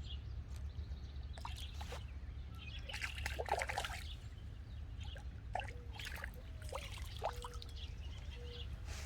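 Water splashing and trickling at the pond's edge, with a cluster of small splashes about three to four seconds in.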